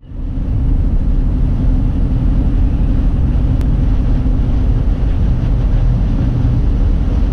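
Steady low rumble of a car's engine and tyres heard from inside the cabin while driving at freeway speed. It rises quickly out of silence at the start.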